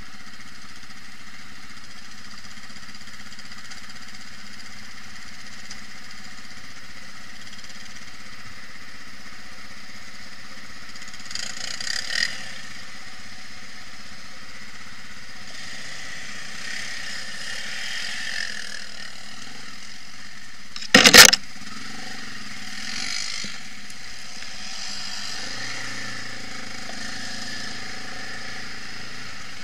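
Quad bike (ATV) engines running steadily at low speed over rough ground. About two-thirds through there is one brief, very loud thump, with a few smaller knocks and swells before and after it.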